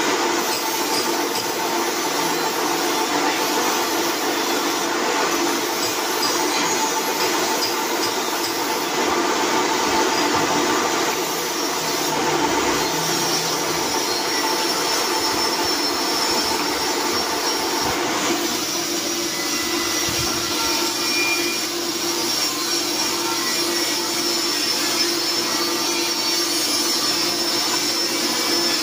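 Floor-standing pillar drill press running steadily, its motor and spindle humming with a few high steady tones as the bit drills into a workpiece. The sound changes character about two-thirds of the way through.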